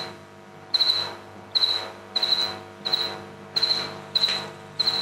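A cricket chirping in short, evenly spaced chirps, about three every two seconds, over a faint steady hum.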